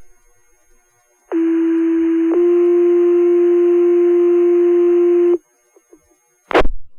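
Two-tone sequential pager alert over the fire dispatch radio: one steady tone for about a second, then a second steady tone held for about three seconds, setting off the station's pagers. A short burst of radio noise follows near the end.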